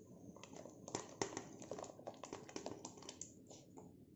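Rice-flour dumplings sliding off a steel plate and dropping into a pot of boiling water: a quick, irregular run of faint small plops and clicks.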